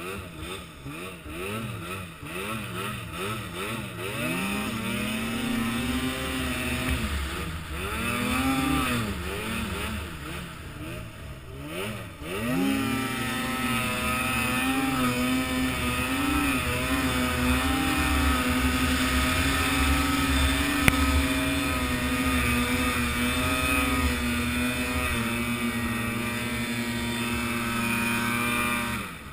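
A small vehicle engine revving up and down repeatedly for about the first twelve seconds. After a sudden break it is held at high, nearly steady revs for about sixteen seconds, then falls away at the end.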